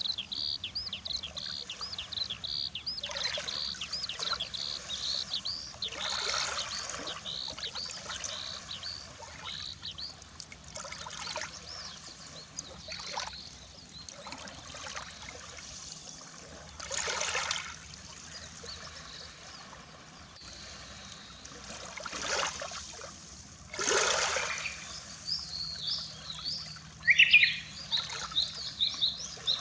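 Small waves washing and trickling on a sea shore in separate surges a few seconds apart, with small birds chirping: a fast run of high chirps at the start and more bird calls near the end.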